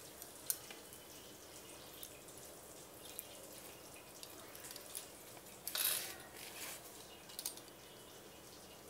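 Steel pizza cutter wheel slicing through a pan-baked pizza's crisp crust on a plate: faint scattered clicks and crunches, with one longer, louder crunch about six seconds in.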